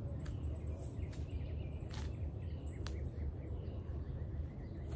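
Outdoor background: a steady low rumble with faint bird chirps and a few sharp clicks.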